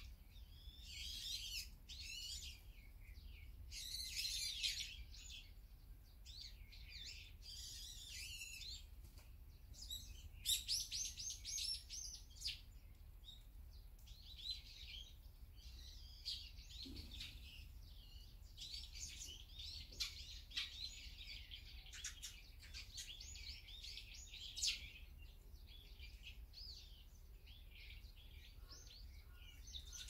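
Eurasian tree sparrows chirping and chattering in quick, overlapping bursts, busiest in the first half.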